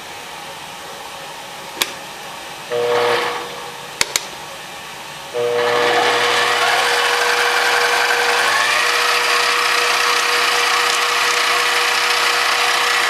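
Micromark 7x14 mini lathe's motor starting with a whine and stopping after about a second, then a couple of sharp clicks, then the motor starting again about five seconds in and running steadily with a high whine and gear noise.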